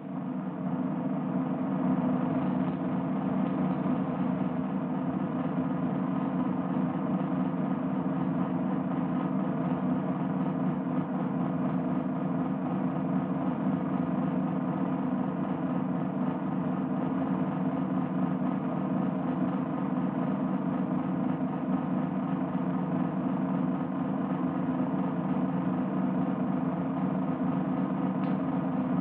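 Military field drum playing a continuous roll, steady and unbroken, from an old film soundtrack with its dull, narrow sound.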